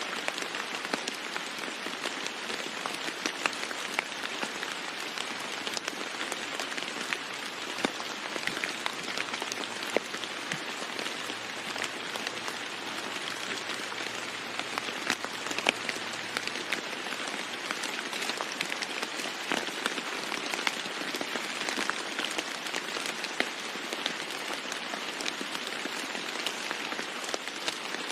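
Steady rain falling on a roof, an even hiss scattered with frequent sharp ticks of individual drops striking.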